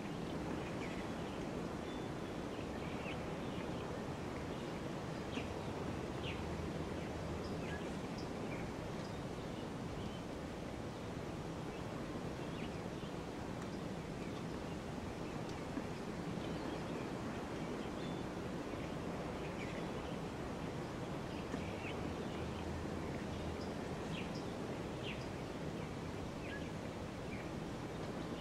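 Steady outdoor ambience: an even rush of background noise with faint, short bird chirps scattered throughout.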